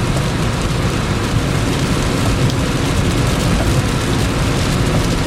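Steady road and engine noise inside a moving car, with rain on the car.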